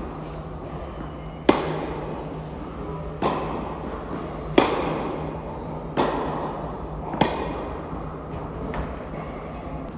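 Tennis rally: the ball struck back and forth by rackets, a sharp pop roughly every one and a half seconds, five in all, each ringing briefly around the indoor hall.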